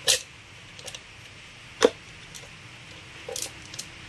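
Steel saw chain clicking against the chainsaw's guide bar as it is worked around the bar by hand: one sharp click just after the start, another a little before the middle, and faint ticks of links in between.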